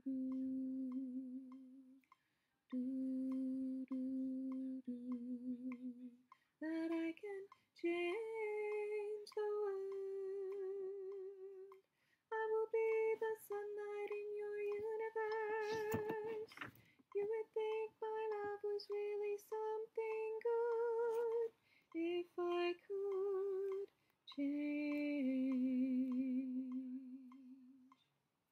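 A woman's alto voice singing a choral part alone, long held notes with vibrato broken by short pauses for breath, rising higher in the middle and settling lower near the end. A metronome clicks steadily underneath.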